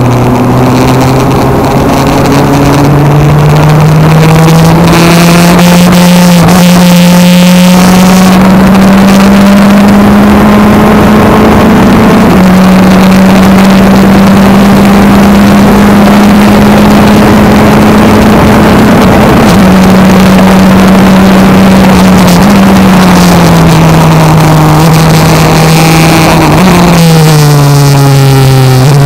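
Racing car engine heard from the open cockpit at full throttle: its pitch climbs steadily for about ten seconds, drops once at an upshift and holds high down the straight. From about two-thirds of the way through, the pitch falls in steps, lowest near the end as the car slows for a corner. A steady rush of wind noise runs underneath.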